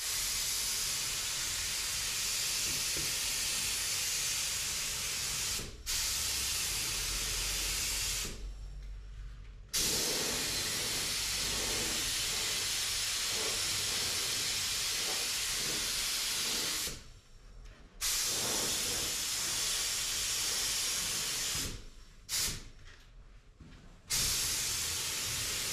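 Compressed-air paint spray gun spraying, a steady hiss in long passes of several seconds, broken by short pauses where the trigger is released.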